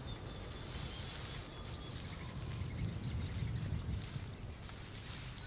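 Outdoor ambience: a low rumble of wind, a faint steady high hiss and faint repeated insect chirps.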